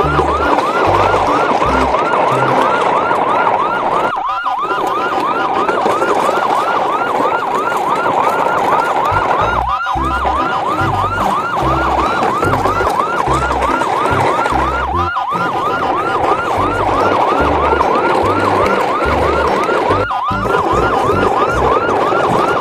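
Electronic siren sound, a fast rising-and-falling wail repeated over and over, over a low pulsing beat. The whole sound breaks off briefly about every five seconds and starts again, as a loop.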